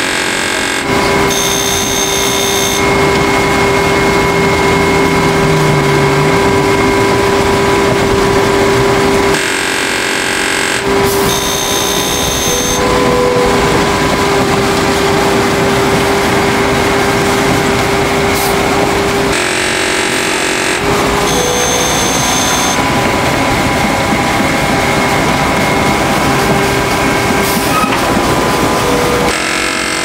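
Bay-Lynx Ultralite volumetric concrete mixer running as it pours concrete down its chute. The truck engine drives the mixer through the rear engine power take-off. A steady mechanical drone with a few held tones is broken about every ten seconds by a rougher, pulsing stretch of a second or so, followed by a brief high whine.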